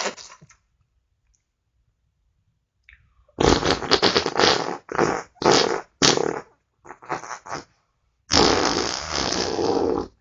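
A run of farts. After a silent gap, several short farts of different lengths come in quick succession from about three seconds in, then one long, drawn-out fart near the end.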